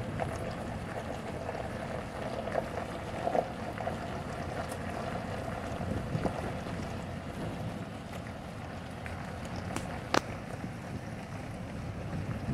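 Steady road and wind noise inside a slowly moving car, with a few short clicks, the sharpest about ten seconds in.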